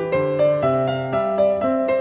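Background piano music: a steady flow of notes, about four a second, over held lower notes.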